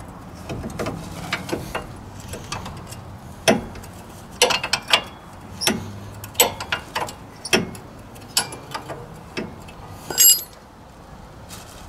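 Irregular metallic clicks and clinks of a wrench and bolts being worked on a car's front brake caliper bracket, with a loud ringing metal clink about ten seconds in.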